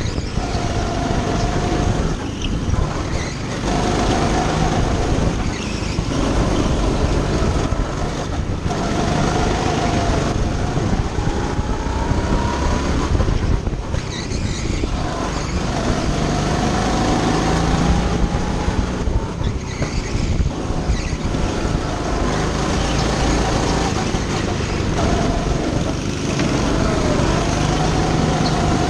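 Go-kart engine running hard, heard close from the driver's seat, its note climbing several times and dropping back as the kart speeds up on the straights and slows for the corners.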